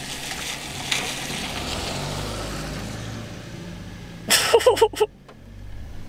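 Vehicle noise heard from inside a car: a steady hum and hiss that swells and then fades. About four seconds in, a man gives a short laugh.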